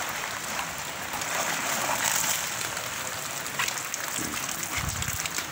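Steady rain falling on the pond and wet pavement, with water splashing and trickling as a keep net full of fish is hauled out of the water.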